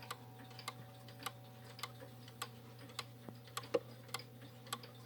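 Schoolhouse regulator clock's 15-day Chinese pendulum movement ticking steadily through its escapement, a little under two ticks a second.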